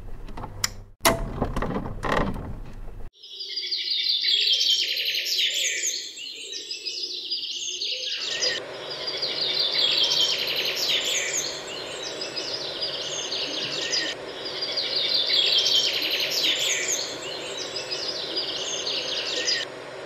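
Small birds chirping and twittering in three near-identical stretches of about five seconds each. From about eight seconds in, the steady hum of a running Creality 3D printer's fans and motors lies beneath them. Two sharp hits come in the first three seconds.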